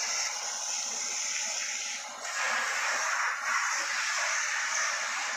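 Water spraying from a car-wash pressure hose onto a car's body and roof, a steady rush that grows louder about two seconds in.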